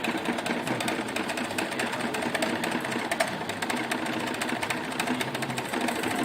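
A DC motor-generator set running on the lab bench: a steady electric-machine whir with a fast, dense ticking clatter over it.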